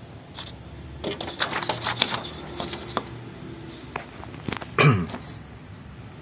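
Irregular clicks and knocks of paper and plastic parts being handled at a Canon iP2770 inkjet printer as the printed sheet is set back in for a second print. One louder clatter comes about five seconds in, over a faint low hum.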